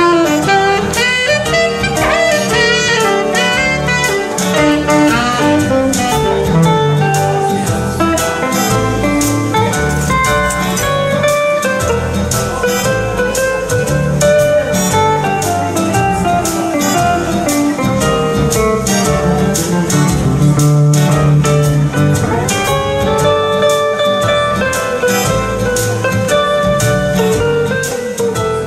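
Swing jazz trio playing an instrumental passage with no vocals: a saxophone carries the melody over a hollow-body electric guitar and a Korg keyboard.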